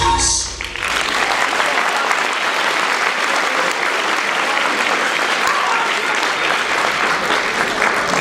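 Audience applauding steadily in a hall, starting as the dance music ends about half a second in.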